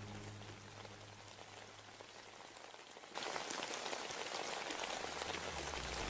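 Steady crackling hiss of rain that cuts in suddenly about halfway through, after music fades out; low music notes start again near the end.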